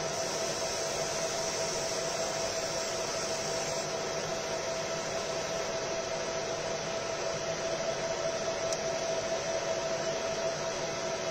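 Fiber laser marking machine running: a steady fan-like whir and hiss with a constant mid-pitched hum.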